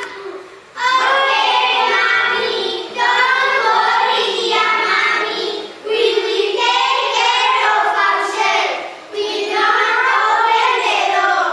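Children's voices singing a song in several long sustained phrases, with brief pauses for breath between them.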